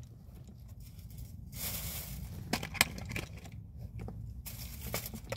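Clear plastic candy-toy packaging being handled and opened: light crinkling and scattered small clicks and taps, over a steady low hum.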